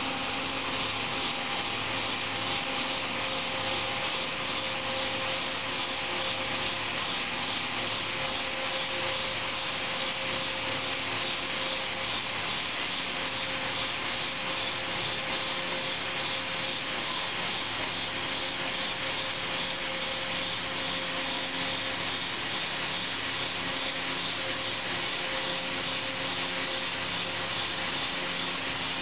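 CNC machine tracing a trochoidal path with a marker held in its spindle: a steady machine hiss with motor hum tones that swell and fade in a slow repeating cycle as the axes loop, and the marker tip rubbing across cardboard.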